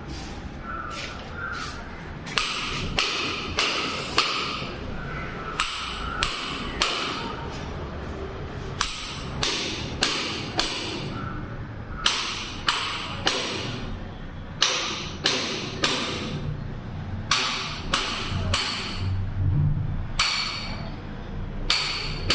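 Repeated hammer blows, about two a second in runs with short pauses between them, each strike with a bright ring.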